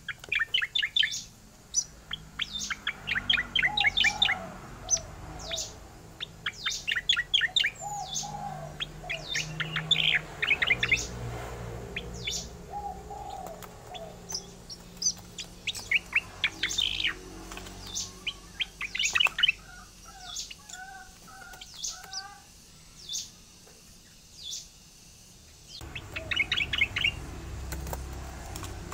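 Cica koreng singing its rolling song: bursts of rapid chirps repeated every few seconds, with sharp high notes between them. A quieter stretch of softer, lower notes comes about two-thirds of the way in.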